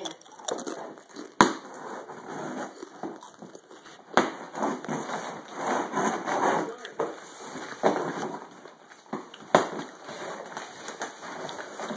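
Long cardboard shipping box being handled and opened: irregular rustling and scraping of cardboard and packing tape, broken by several sharp knocks.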